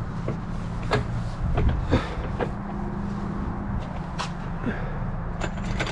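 Irregular metallic clicks and knocks as a car jack and its parts are handled and worked, about nine in all, over a steady low hum like an idling engine.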